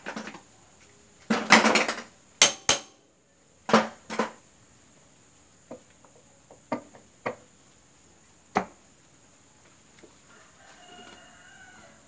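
Sharp metal clanks and knocks as a Honda CM125T's clutch cover is handled and pressed back onto the engine case, with about eight separate knocks spread unevenly. A louder, longer burst of noise comes about a second and a half in.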